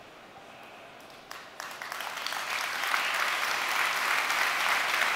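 Audience applause: after a brief hush it starts about a second and a half in and builds to a steady clapping.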